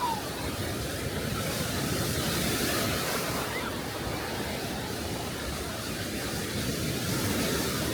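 Sea surf washing onto a beach, a steady rush of small waves that swells slightly around the middle and again near the end.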